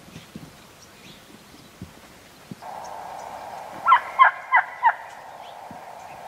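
Gould's wild turkey gobbling: four quick, loud notes within about a second, midway through, over a steady background hiss.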